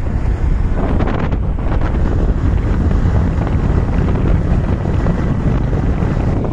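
Wind rushing over the microphone of a moving scooter: a loud, steady low rumble.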